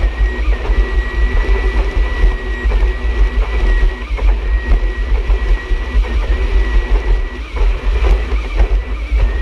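Jet ski engine running at speed on the water, with a steady high whine over it and wind buffeting the microphone.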